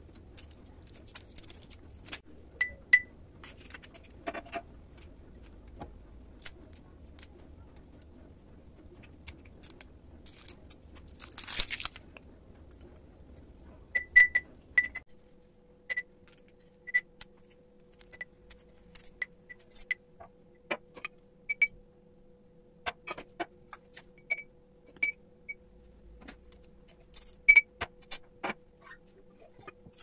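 Glass spice jars clinking and their caps clicking as they are picked up, set down and opened on a countertop, with short ringing glass taps scattered throughout and a brief rattle of shaken spice.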